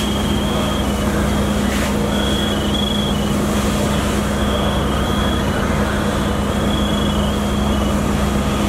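Emergency vehicle engines running steadily, a constant low drone and hum. Short, irregular high-pitched electronic beeps come and go over it.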